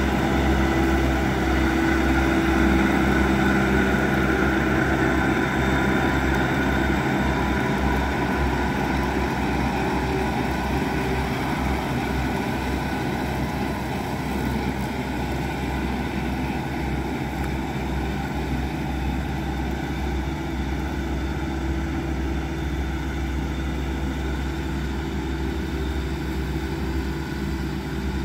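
Reform Mounty 100V tractor's 100 hp engine running steadily under load while driving a towed Major TDR20000 roller-wing rotary mower through wet grass. The sound fades a little as the machine moves away.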